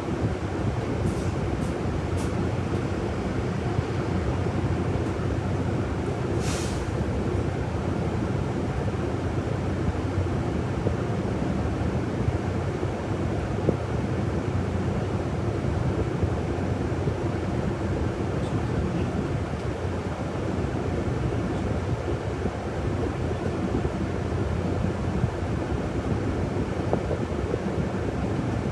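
City bus running, heard from inside the passenger cabin: a steady engine and road rumble. A few light clicks come about a second in, and a short sharp hiss of air about six seconds in.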